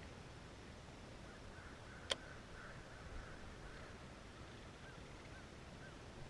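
Faint bird calls, a few short arched notes repeated through the quiet, with one sharp click about two seconds in.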